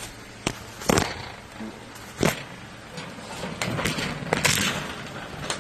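Handling noise: three sharp knocks in the first half, then a stretch of scraping and rustling as things are moved about.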